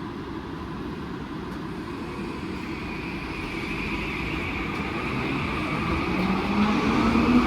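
SkyTrain Mark 5 train running on its linear induction motors, growing steadily louder, with a motor whine that rises in pitch over the last second or so.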